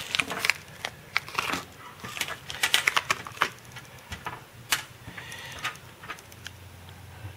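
Small metal machine screws and rings clicking and ticking against one another as a small hardware package is handled, with some brief crinkling of the package.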